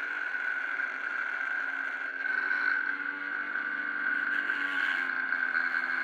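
Homemade 12 V angle grinder's DC motor running steadily with a high, even whine.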